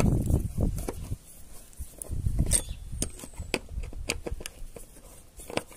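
Hand screwdriver turning a screw through a metal latch into a wooden cabinet door. There is low rubbing and grinding noise for about the first second and again a little after two seconds, with scattered sharp clicks and taps.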